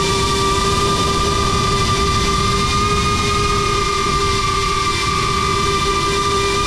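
GEPRC Crown HD cinewhoop drone's motors and ducted propellers in flight, giving a steady whine over a low rumble.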